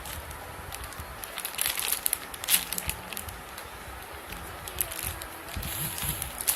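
Crinkling and crackling handling noises with many short, sharp clicks, a denser, louder cluster about two seconds in, as squishy toys and their plastic are handled close to the microphone.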